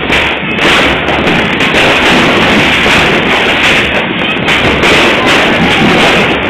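Fireworks going off in a dense, continuous barrage, the bangs and crackle running together, loud enough to overload the recording.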